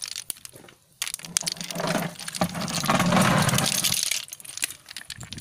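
Hard conical snail shells clicking and clattering against each other as hands rake and sort through a pile of them, with a louder, denser rattling stretch in the middle.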